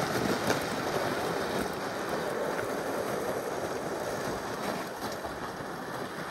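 Plastic gear sled dragged across lake ice, its runners making a steady scraping hiss that slowly fades, with a few faint footstep crunches on the icy crust.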